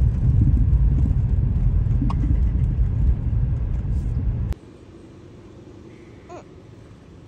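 Low, steady rumble of a car on the move for about four and a half seconds, then a sudden cut to quiet open-air background. About six seconds in, a goat gives one short bleat.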